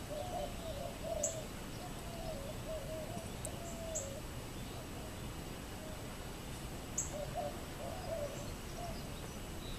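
A dove cooing in strings of short, low, wavering notes during the first four seconds or so and again briefly near the end, with three faint high chirps spaced about three seconds apart.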